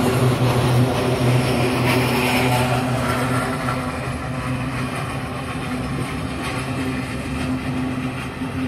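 A freight train's empty container flat wagons rolling past on the rails: a steady rumble of wheels on track with a constant low hum, easing off slightly toward the end.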